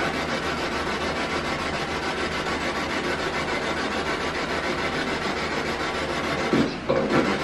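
Spirit box radio sweeping through stations, giving continuous rasping static chopped into rapid fragments, with a short dropout near the end.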